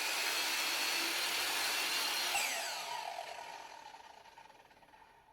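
Electric saw cutting a 45-degree angle through wood, then switched off about two and a half seconds in, its whine falling in pitch and fading as the blade spins down.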